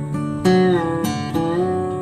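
Background music: plucked acoustic guitar, with a few new notes struck about half a second apart.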